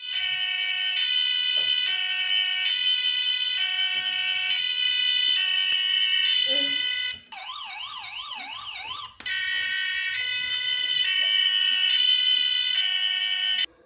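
Electronic police siren from a scale model police car's sound module, a two-tone high-low pattern changing note a little under once a second. About seven seconds in it switches to a quieter, fast rising-and-falling yelp for about two seconds, then goes back to the two-tone and cuts off suddenly near the end.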